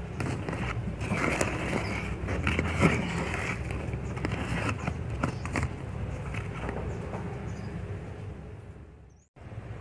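Plastic spatula stirring a thick paste of toothpaste and powder in a plastic cup: irregular squishing and scraping with small clicks against the cup, over a steady low hum. The sound fades and cuts out briefly about nine seconds in, then resumes.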